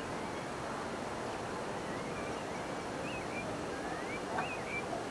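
Steady outdoor background noise, an even wind-like hiss, with a few faint high chirps partway through.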